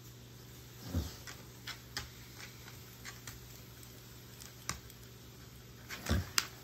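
A German shorthaired pointer's claws clicking and tapping on a hardwood floor as she steps about, with scattered light ticks and two soft thumps, one about a second in and one near the end.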